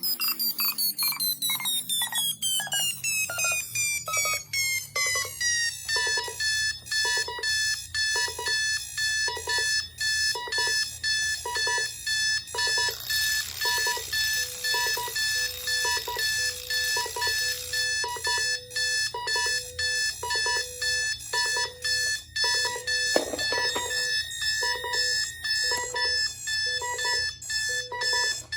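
Alarm clock going off in an even on-off pulsing. Over the first few seconds its pitch slides steadily down, then it holds one pitch and keeps sounding.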